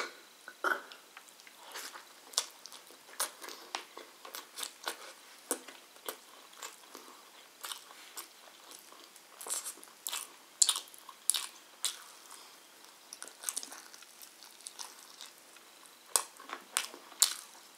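A person chewing and biting chicken curry and rice, eaten by hand: irregular sharp mouth clicks, several close together at times, as the food is chewed and meat is bitten off the bone.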